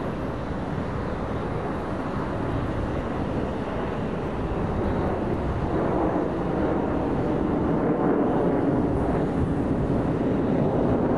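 Jet engine noise from a formation of nine BAE Hawk Mk132 jet trainers: a steady rushing roar that grows louder from about halfway through.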